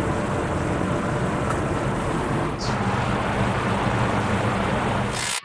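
Steady noise of a shop with a low, even hum, unchanging while work goes on, with a faint brief hiss a little past halfway; it cuts off suddenly just before the end.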